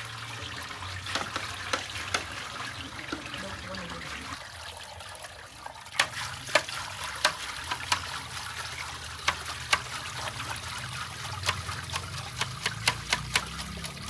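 Palm nut pulp and liquid being worked through a sieve: steady trickling and splashing of liquid, with sharp clicks and knocks from about six seconds in that come thicker near the end.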